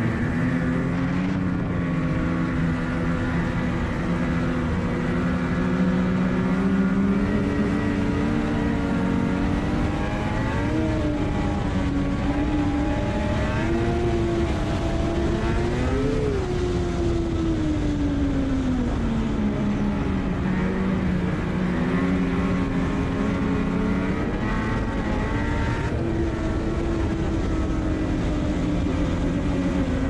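Ski-Doo MXZ Blizzard snowmobile engine running under way, its pitch climbing and falling several times as the throttle is opened and eased, over a steady rush of track and wind noise.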